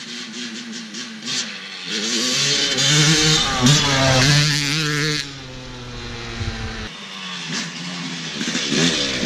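Dirt bike engine revving, its pitch climbing for a few seconds before easing off suddenly. After a cut, a dirt bike engine runs at a lower, changing pitch.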